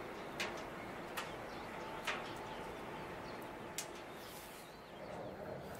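Faint outdoor background hiss, broken by four short, sharp clicks spread over a few seconds.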